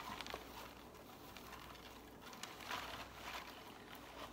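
Faint rustling and light taps of items and packaging being handled on a table.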